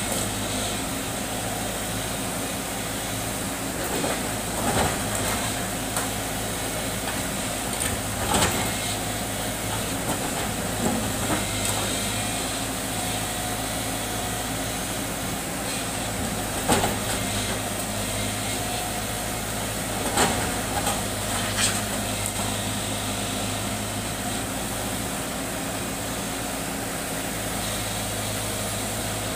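JCB tracked excavator's diesel engine running steadily while it works its boom, with scattered sharp knocks and clanks now and then.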